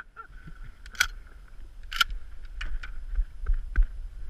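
Choppy bay water lapping against a small duck boat, with wind rumbling on the microphone. Several sharp knocks break through, the two loudest about one and two seconds in.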